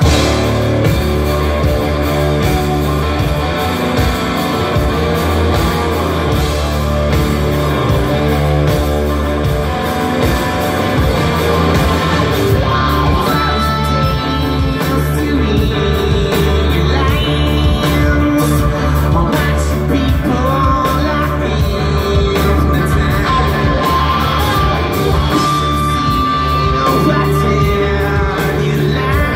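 Live rock band playing a song, with electric guitars, bass, drums and a singing voice, heard loud and steady from within the audience.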